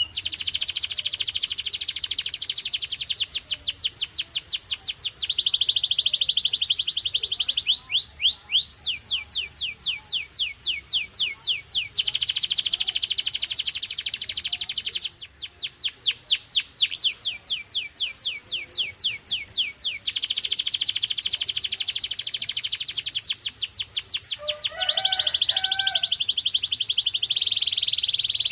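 Canary singing a continuous song of fast trills. Dense, rapid rolls alternate every few seconds with slower runs of repeated falling notes, sung without a break.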